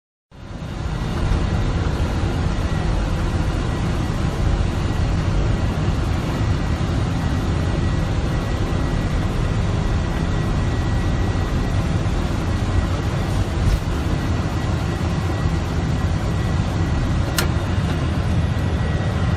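Steady low rumble of noise inside a Boeing 747-400 cockpit, with a thin steady high whine and a single sharp click near the end.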